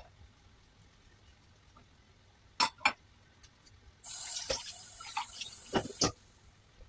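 Water running for about two seconds, the way a kitchen tap runs, with sharp clicks and knocks of handled kitchenware just before it and as it stops.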